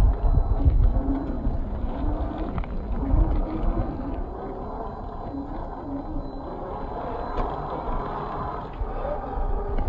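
A 1/10-scale RC crawler's 540 brushed motor and gear drive whining as it crawls over rock and gravel, slowed to half speed so the whine is pitched low and rises and falls with the throttle. It sits over a heavy low rumble that is strongest in the first second.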